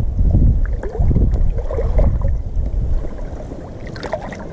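Wind buffeting the microphone, a gusty low rumble that eases off in the second half, with a few brief higher crackles near the end.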